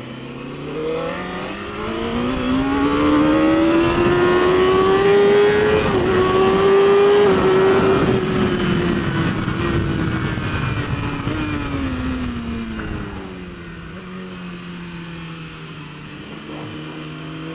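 Race motorcycle engine heard from on board, pulling hard out of a corner: its pitch rises for about six seconds, holds briefly, then falls slowly as the throttle is eased.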